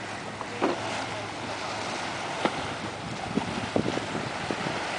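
Steady wind and surf: small waves washing against the shore rocks and pier, with wind on the microphone and a few faint short knocks.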